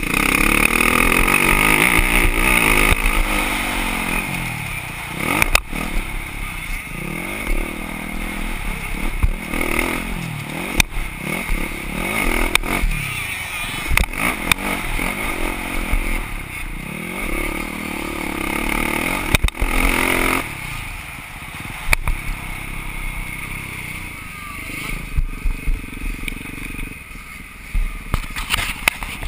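Dirt bike engine heard up close from the bike itself, revving up and down again and again as the rider accelerates and backs off around a motocross track. Scattered sharp knocks from the bike crossing the rough ground.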